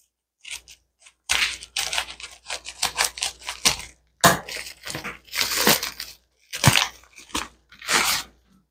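Scissors cutting open a plastic padded bubble mailer, then the mailer crinkling and rustling as a paper packet is pulled out of it: a run of short crackling, crinkling noises.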